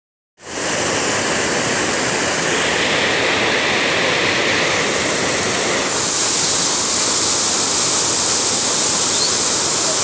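A large waterfall rushing, a steady, loud wash of white water pouring over rock ledges into a foaming pool. It grows a little louder and hissier about halfway through.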